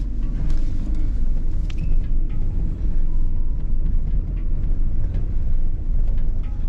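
A car driving: steady low rumble of engine and road noise.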